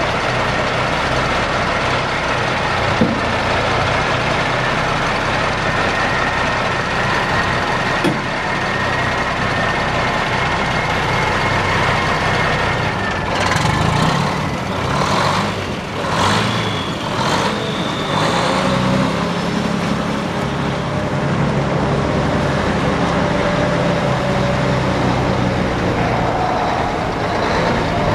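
Mack RD686S dump truck's Maxidyne 300 hp diesel engine running steadily. About halfway through come several short hisses of air as the truck moves off, and the engine pitch rises and falls as it pulls away through the gears.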